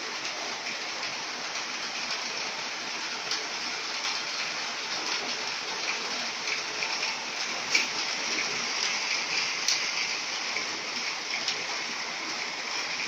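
Maytag washing machine spinning a load of two blankets after draining: a steady rushing of water being spun out of the load and running away, with a couple of light ticks about eight and ten seconds in.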